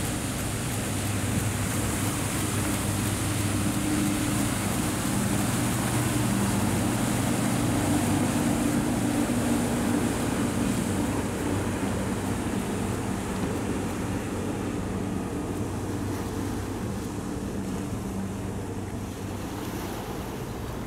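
Motorboat engine running with a steady low hum, over rushing water and wind on the microphone; the hum fades in the second half.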